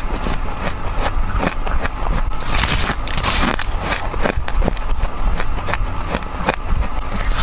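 Fast, repeated bites into freezer frost: dense crisp crunches and crackles, several a second, with a couple of longer grinding crunches about two and a half seconds in. A steady low hum runs underneath.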